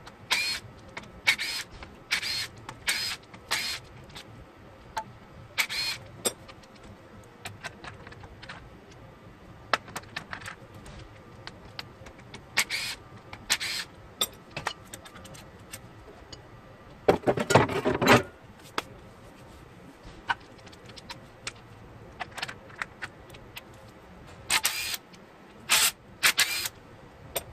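Hand tools and bolts clinking against metal engine parts during an engine teardown: scattered short, sharp metallic clicks and clinks, with a longer rattling clatter about seventeen seconds in.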